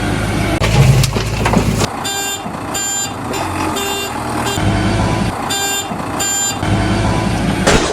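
Backhoe loader engine rumbling, with a reversing alarm beeping in pairs twice.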